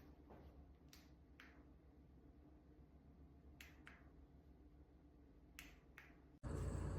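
Near silence with a few faint, sharp clicks. About six and a half seconds in, a steady low hum with hiss begins suddenly.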